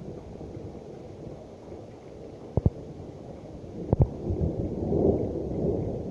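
Hailstorm: a steady low rumbling wash of storm noise that swells in the second half, broken by two sharp double knocks, the first a little before the middle and the second about two-thirds through.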